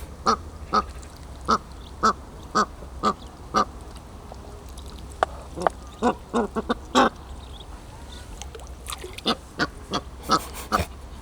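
Ducks calling with a run of short quacks, about two a second at first, bunching closer together about halfway through and again near the end.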